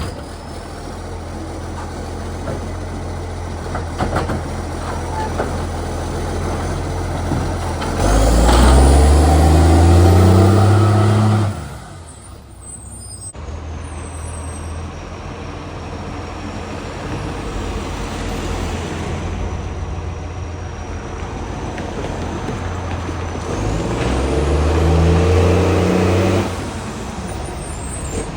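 Garbage truck's diesel engine running at idle and revving up twice, about eight seconds in and again near the end, each rev rising in pitch and very loud before dropping away suddenly. The harsh loudness comes from a leaking exhaust pipe.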